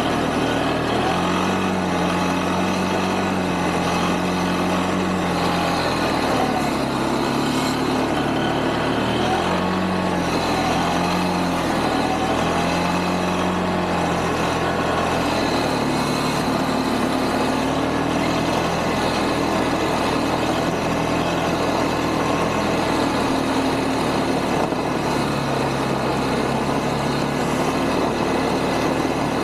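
ATV (quad) engine running as the quad is ridden through snow, its engine note rising and falling several times with the throttle.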